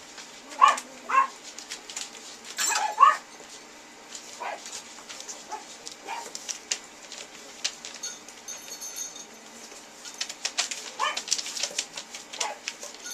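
Toy poodle puppies giving short high-pitched yelps and whines, the loudest in the first three seconds and softer ones after, with a run of light clicks near the end.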